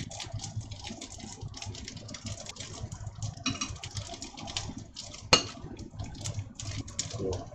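Rice and chicken sizzling and crackling in a cast-iron skillet, with chopsticks stirring and tapping in the pan; one sharp clack about five seconds in.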